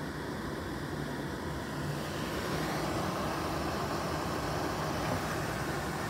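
Atwood RV furnace blower motor running steadily with a low hum, growing louder and fuller about two seconds in. The furnace is cycling through repeated ignition tries on its way to a lockout.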